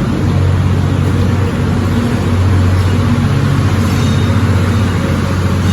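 EF64 electric locomotive running with a steady low hum as the train departs.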